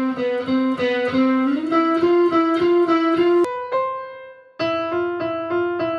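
Fender Telecaster electric guitar picking a rapidly repeated note that steps up in pitch about one and a half seconds in. After about three and a half seconds it switches to a keyboard playing single notes: one note held for about a second, then a repeated note.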